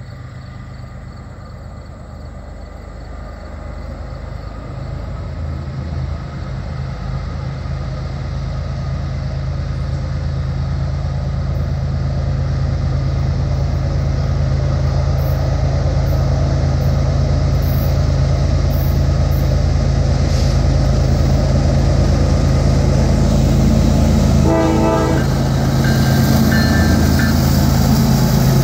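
CSX freight train led by GE diesel locomotives approaching and coming alongside, the engines' low drone growing steadily louder. A short horn sound comes near the end, just before the locomotives pass.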